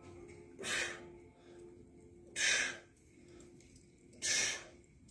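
A man breathing out hard three times, about two seconds apart, with each exertion of a dumbbell lift.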